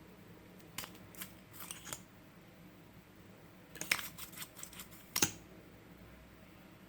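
Scissors snipping through a squishy foam toy in uneven cuts: a few single snips early, a quick run of several about four seconds in, and one sharp snip a second later.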